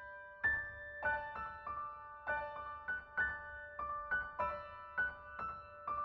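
Background music: a gentle keyboard melody of struck notes that ring and fade, about two or three a second, with soft low thuds on the beat.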